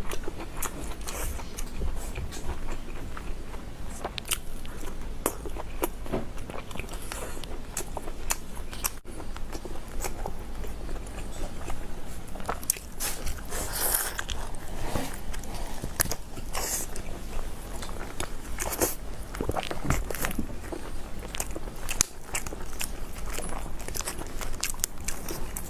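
Eating sounds: a long run of crunchy bites and chewing, with irregular crisp clicks and smacks throughout.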